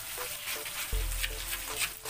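Spice paste sizzling in hot oil in a wok as it is stir-fried with a spatula, with short scrapes of the spatula against the pan. The paste, with lemongrass, bay leaves and lime leaves, is being sautéed until fragrant.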